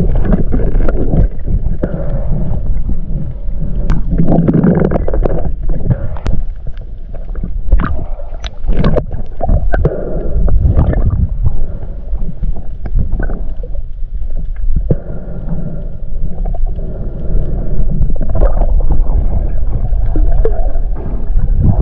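Water sloshing and gurgling around a camera that dips between the surface and underwater, with scattered sharp clicks.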